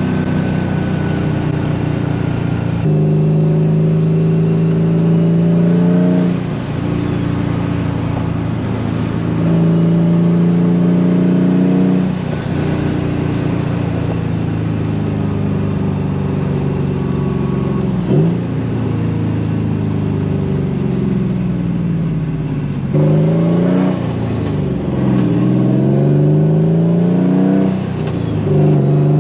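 Nissan Silvia S15's engine pulling up through the gears, its pitch climbing steadily for several seconds and dropping at each of several gear changes. There is a single sharp knock about eighteen seconds in.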